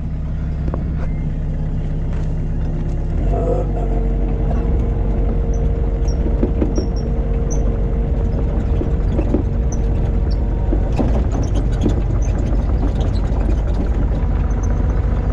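Mini excavator's diesel engine running; it picks up about three seconds in, and a steady whine holds for several seconds, with scattered clanks and knocks of the machine working.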